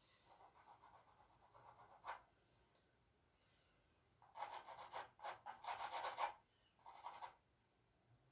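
Charcoal scratching across canvas in short drawing strokes: faint rubbing at first, then a quick run of louder rasping strokes about four seconds in, and one more stroke near the end.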